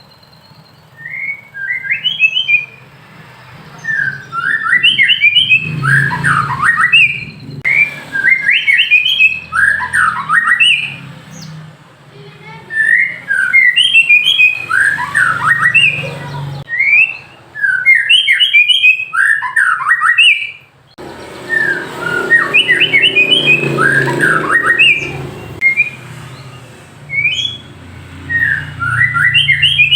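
White-rumped shama (murai batu) singing: loud, repeated phrases of quick sweeping whistled notes, each burst lasting one to three seconds with short pauses between.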